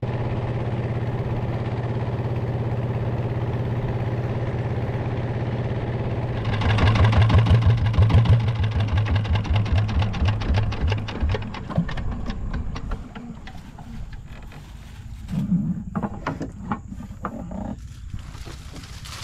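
Small boat engine driving a wooden river boat: a steady low hum that grows louder with a fast pulsing beat about a third of the way in, then drops back to a lower level about two-thirds through, with a few short knocks near the end.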